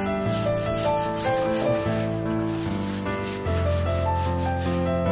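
Background music of held, keyboard-like notes over a bass line, with a steady scratchy rubbing sound running under it.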